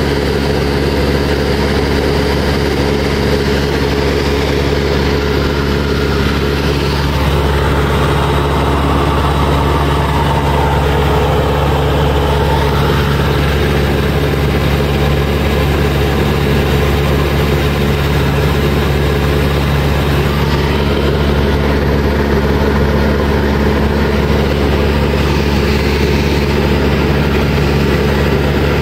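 Single-engine Cessna's piston engine and propeller running steadily in flight, heard from inside the cabin.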